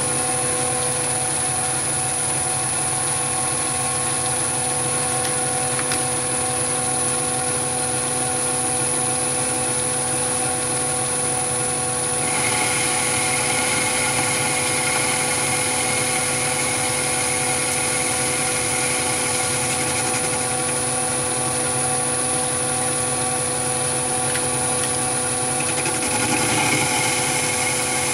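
Chinese mini lathe running steadily at about 690 RPM, its motor and gearing giving a steady whine. About twelve seconds in, a higher whine joins and holds as the small geared DC motor of the variable-speed compound drive starts feeding the tool along the angle.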